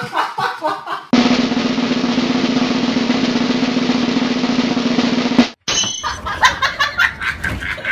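Snare drum roll, starting abruptly about a second in and cutting off sharply a couple of seconds before the end, with scattered short knocks before and after it.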